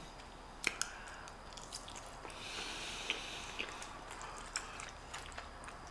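A person quietly chewing a mouthful of pasta, with scattered small mouth clicks.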